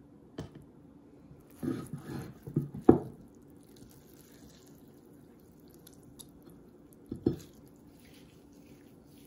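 Wet blanched kale being squeezed and pressed into a pie crust by hand: a few short wet squelches and drips clustered between about one and a half and three seconds in, the loudest a sharp knock near three seconds, and another brief one about seven seconds in.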